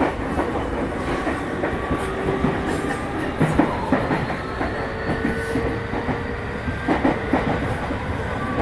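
Yokohama Minatomirai Railway Y500 series electric train running, heard from inside the car: a steady rumble of wheels on rail under a faint steady motor whine. Short clacks over rail joints come in pairs about three and a half seconds in and again about seven seconds in.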